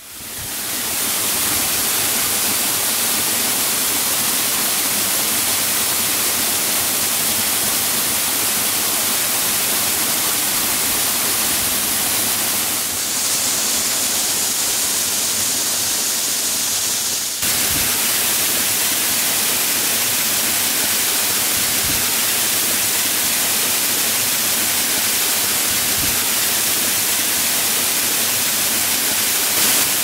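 Waterfall rushing: a loud, steady hiss of falling water that fades in at the start, with an abrupt shift in its sound a little over halfway through.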